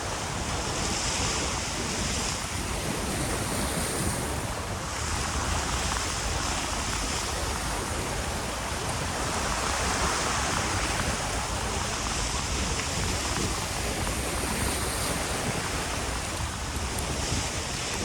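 Surf washing against a rock jetty, swelling and easing every few seconds, with wind rumbling on the microphone.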